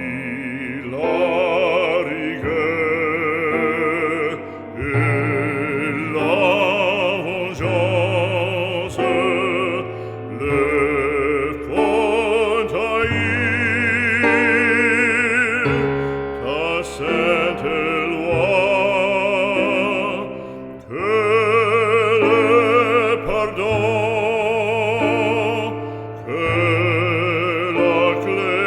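Background music: an operatic voice singing sustained notes with strong vibrato over instrumental accompaniment.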